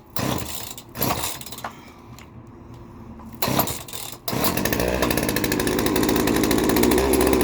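Old Craftsman 42cc two-stroke chainsaw being started at half choke: a few short bursts as it sputters, then about four seconds in it catches and keeps running steadily.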